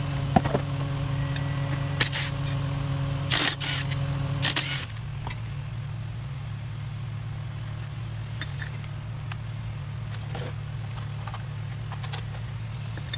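A steady low motor hum, with a few sharp metallic clicks and a short clatter in the first five seconds as transaxle parts and bolts are handled. About five seconds in, the higher part of the hum drops away and a fainter drone goes on.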